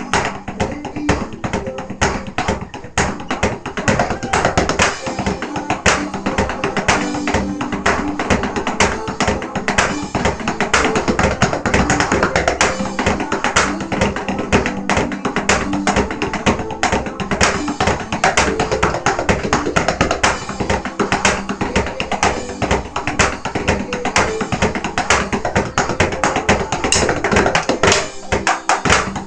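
Drumming on an electronic drum kit along with a backing song: a steady stream of fast stick hits on the rubber pads and cymbals over the music, with a brief break about a second before the end.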